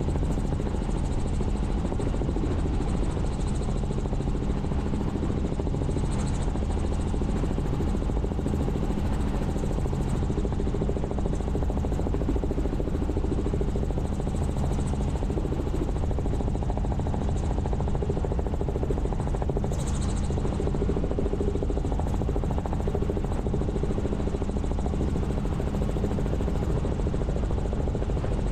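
Helicopter in flight: a steady, unchanging drone of rotor and engine.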